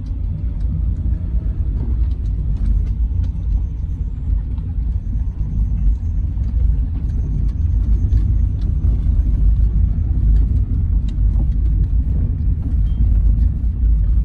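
Car driving slowly over a rough, potholed dirt road: a steady low rumble with small rattles and knocks from the bumps.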